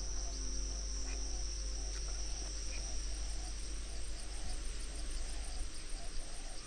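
Steady high-pitched insect chorus with a soft pulsing call repeating about two or three times a second. A sustained music pad fades out in the first second and a half.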